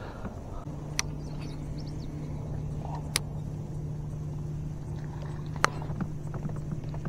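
A steady low motor hum starts under a second in and runs on evenly, with three sharp clicks or knocks spaced a couple of seconds apart.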